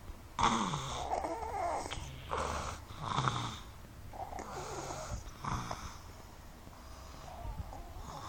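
People snoring: a string of about six uneven rasping snores, some long and some short.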